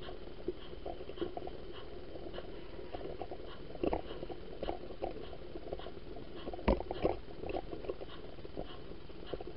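Model railway running noise: a steady hum with small, irregular rattling clicks of the cars' wheels on the track, and two louder clicks about four and about seven seconds in.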